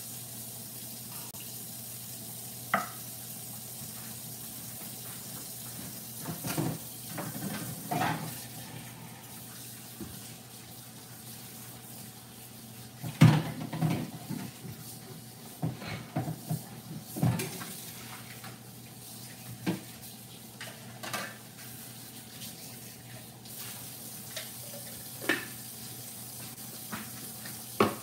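Water running at a sink while a plastic food processor bowl and its parts are washed, with scattered knocks and clatters of the parts against the sink and dishes; the loudest clatter comes about 13 seconds in.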